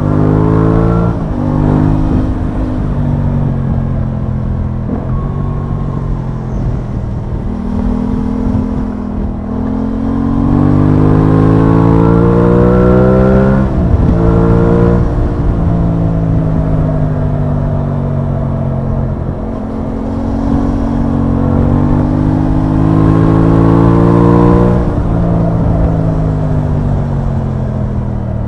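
Aprilia Tuono 660's parallel-twin engine heard from the rider's seat on the move. Its pitch climbs under throttle and drops sharply at gear changes, around a second in, near the middle and about three quarters through. In between are stretches of easing off, where the pitch sinks slowly.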